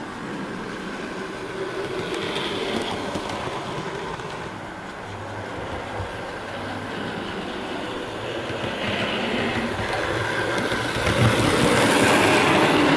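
Dapol model BR Class 22 diesel locomotive running along the track, its motor whirring and its wheels rolling on the rails, running smoothly. It grows louder as it comes near and is loudest close to the end, as it passes by.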